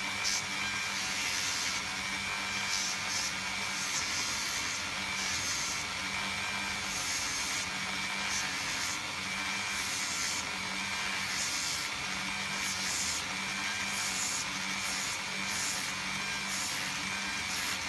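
Dremel rotary tool on a flexible-shaft extension running steadily at about 10,000 RPM, with a steady motor whine. Its fine sanding drum sands the leftover nub off a piece of tubing, adding a hissing rub that comes and goes as it touches.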